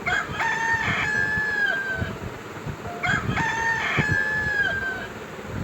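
Rooster crowing twice, about three seconds apart, each crow a long held call that falls away at the end.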